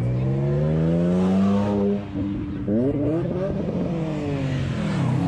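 Car engine accelerating hard. The revs climb for about two seconds, break off briefly as at a gear change, climb sharply again and then fall away.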